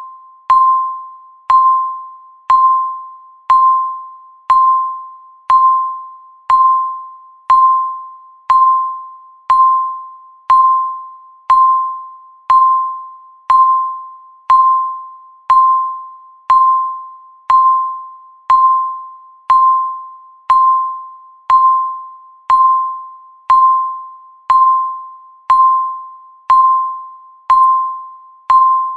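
Countdown timer's electronic tick: a single pitched ping once a second, struck sharply and fading away before the next, at an even steady rate.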